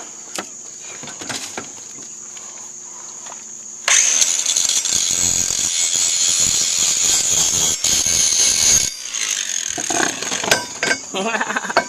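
Angle grinder running with its disc cutting into a steel pipe, starting about four seconds in and cutting off suddenly about five seconds later. Crickets chirp steadily throughout, and a few sharp metal knocks follow the grinding.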